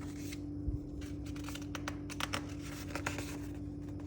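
Paper rustling and crackling with light clicks as the pages of an old book are handled and turned, over a steady low electrical hum.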